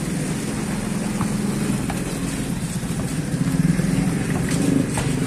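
Motorcycle engine running loudly at high revs, its pitch wavering up and down as the rider works the throttle.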